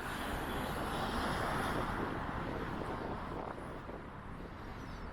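Road traffic going past, a noise that swells a second or two in and fades away, with wind buffeting the microphone.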